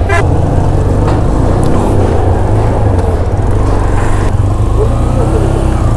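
Motorcycle engine running steadily while being ridden, a continuous low rumble.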